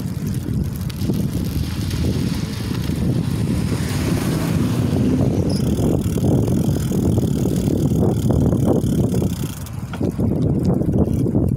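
Steady wind buffeting on the microphone of a moving KhVZ Sputnik bicycle, mixed with the rumble of its tyres rolling over wet asphalt. The sound eases briefly near the end.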